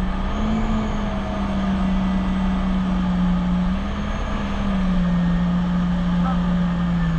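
Jet ski engine running at steady throttle, its note dipping and rising slightly a few times, over rushing wind and water.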